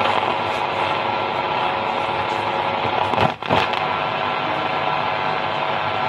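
Repaired LA4440 amplifier board playing through its speaker: a steady hissy, crackly output with a brief drop-out about three and a half seconds in.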